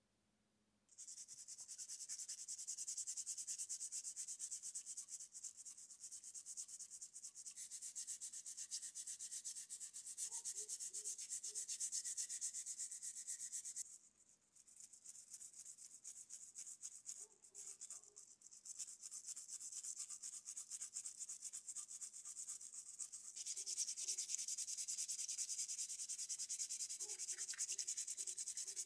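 Small wire brush scrubbing wet, greasy steel lathe parts in a tub of degreaser: a fast, dense scratching of bristles on metal, starting about a second in, with a brief break about halfway through.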